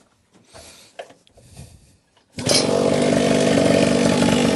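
Small two-stroke mini moto engine pull-started: it catches on the second pull about two seconds in and runs loud and steady from then on.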